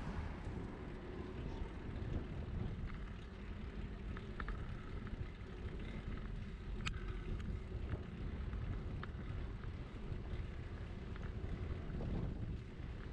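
Wind buffeting the microphone of a camera riding on a moving bicycle, with steady road and tyre rumble and a few sharp clicks from the bike.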